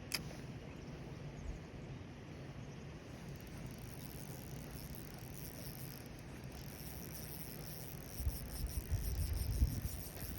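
Outdoor ambience by a fishing pond: low wind rumble on the microphone that grows louder near the end, a single sharp click right at the start, and a faint high-pitched steady trill joining about four seconds in.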